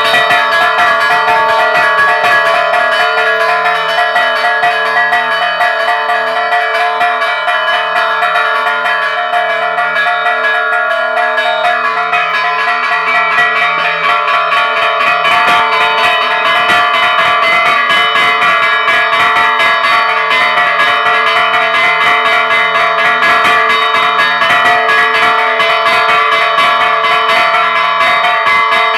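Bronze church tower bells, hung fixed and struck by their clappers pulled on hand cords, ringing a rapid festive peal (toque de fiesta). The quick strikes overlap into continuous ringing.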